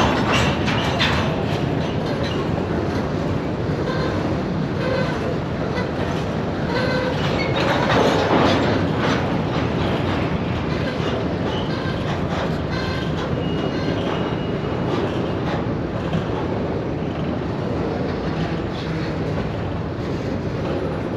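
Freight train cars rolling through the rail yard: a steady rumble with irregular clicking and clanking of wheels over rail joints.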